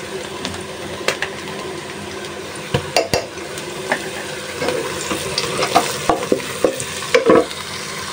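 Oil sizzling steadily in a pot as ground turmeric, chilli and coriander fry with onions and garlic paste, while a metal spoon scrapes the paste from a bowl and clicks against the dishes several times.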